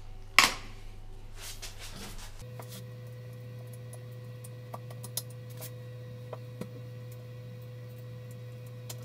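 Hands working the plastic toilet-seat hinge fittings: one sharp click about half a second in, then scattered small plastic clicks and taps. A faint steady hum comes in about two and a half seconds in.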